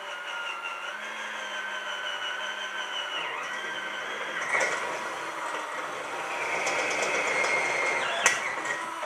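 Electric drill running steadily for several seconds, its whine dipping briefly a few times as it takes load, with a sharp click shortly before it stops suddenly.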